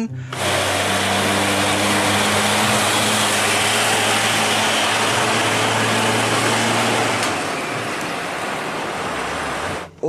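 Tanker truck towing a second tank trailer, driving along a road: its engine runs with a steady low hum under a wide rush of road and tyre noise, growing quieter over the last few seconds.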